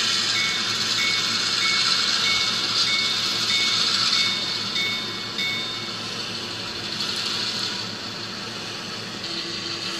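HO-scale Athearn Genesis GP38-2 model diesel locomotive running on track under its DCC sound decoder. The decoder's bell rings about twice a second and stops a little past halfway, and the running sound carries on after it.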